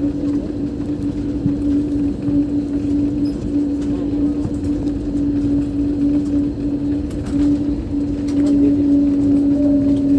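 Airliner cabin noise while taxiing: the jet engines' steady drone with a constant hum, and a second, higher tone joining about three-quarters of the way through.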